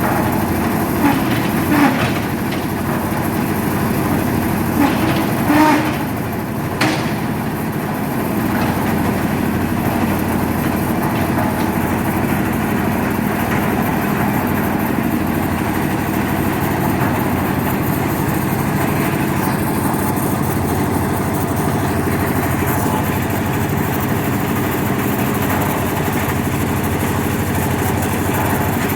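A concrete mixer machine's 10 HP air-cooled diesel engine running steadily, with a few short knocks in the first seven seconds.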